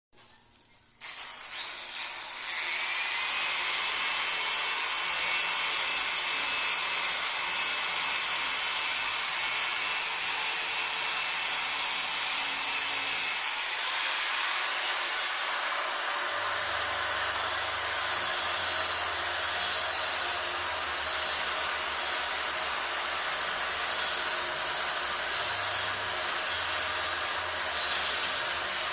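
Handheld power carving tool running and cutting into the dry wood of a loa (cluster fig) bonsai trunk: a steady high whine over a harsh grinding noise. The motor spins up about two seconds in, and the sound changes about halfway through.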